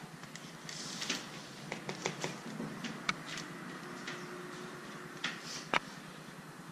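Faint clinks, taps and scrapes of a metal fork and spoon against a plastic bowl while cookies are dipped in melted chocolate, with a couple of sharper clicks about three seconds in and near the end.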